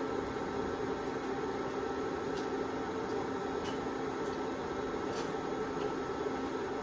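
Steady hum and whir of an induction cooktop's cooling fan as a pan of oil heats, with a few faint ticks.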